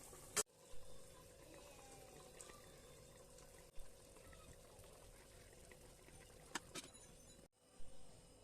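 Faint kitchen sounds of liquid being poured or handled, with a few sharp clicks and short louder knocks. The sound cuts off abruptly a few times.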